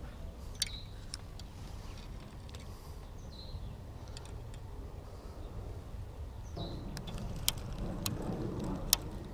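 Open-water ambience aboard a small fishing boat: a steady low rumble of wind and water that grows fuller about two-thirds of the way in, with a few short bird chirps and several sharp clicks, the loudest two near the end.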